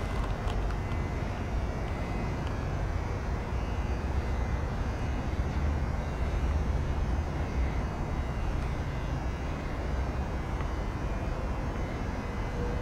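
A 1970 Chevelle Malibu's 307 small-block V8 idling steadily, a low, even rumble.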